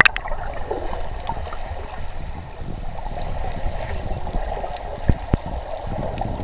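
Muffled underwater ambience of shallow seawater, heard through a submerged camera: a steady wash of water noise with low rumbling and a few soft knocks a little after five seconds in.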